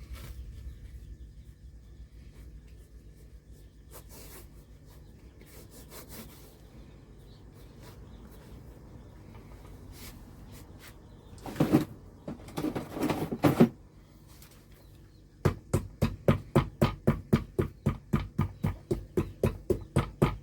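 Low hum with faint scattered clicks, two loud rubbing or scraping bursts about twelve seconds in, then sharp, very regular tapping at about three to four strokes a second from about fifteen seconds in, from hand work on a shoe.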